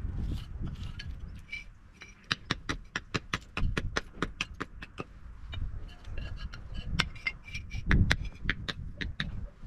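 Bricklayer's hammer chipping at a solid red clay brick on a concrete slab, trimming it into thin slices: a rapid series of sharp taps, several a second, with a few heavier strikes near the end.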